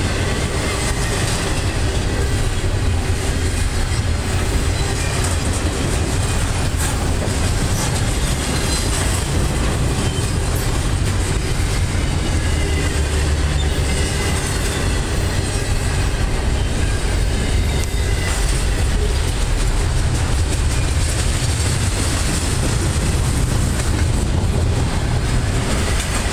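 Norfolk Southern double-stack intermodal train's loaded container well cars rolling past: a steady, loud rumble of steel wheels on rail with a clickety-clack over the joints. Faint thin wheel squeals come and go now and then.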